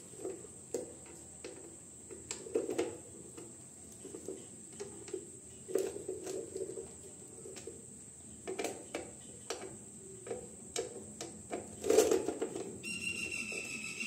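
Irregular clicks, taps and knocks of a screwdriver and hands working on a hand-press heat sealing machine's body and sealing bar during repair, the loudest knock about 12 seconds in. A faint steady high whine runs underneath, and a short high-pitched warble comes near the end.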